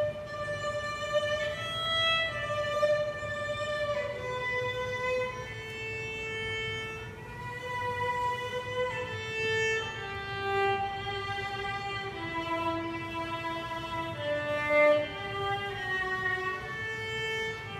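Solo violin playing a slow melody of long held notes, one note at a time.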